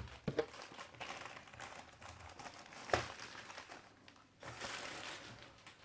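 Faint crinkling and rustling of packaging being handled and cleared away, with a few light clicks and a soft knock about three seconds in.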